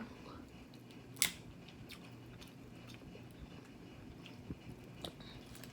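Close-up eating sounds from a seafood boil: quiet chewing and biting, with one sharp crack about a second in and a few faint clicks after.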